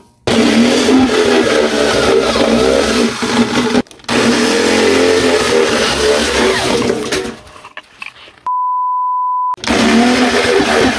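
Electric drill with a step bit boring holes through the thin steel wall of a paint can, the motor running under load, with a short stop just before four seconds in and a quieter spell about three-quarters of the way through. Midway through that quiet spell a steady, single-pitch beep tone sounds for about a second, and the drilling starts again near the end.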